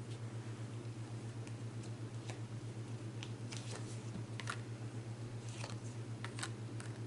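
Scattered light clicks and taps, irregular and a few per second at most, over a steady low electrical hum.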